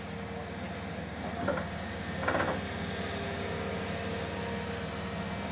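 Hydraulic excavator's diesel engine running steadily while its bucket pushes steel trench sheeting elements down, with two short louder sounds about one and a half and two seconds in.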